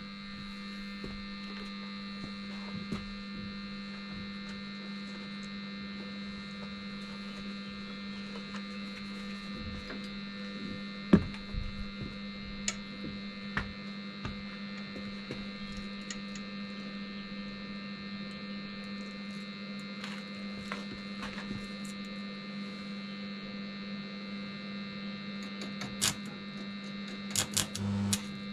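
Steady electrical hum from a mains-powered machine, switched on with a click at the start, with scattered light clicks and taps over it and a sharper tick about eleven seconds in.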